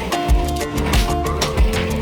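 Background music with a steady beat and held synth notes.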